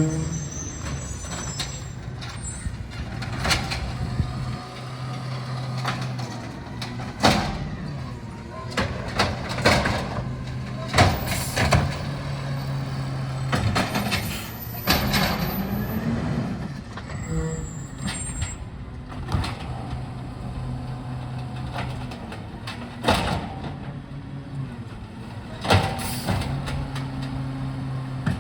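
Garbage truck collecting green waste: its diesel engine runs steadily under load while the cart is emptied, with repeated knocks and bangs and several short air-brake hisses.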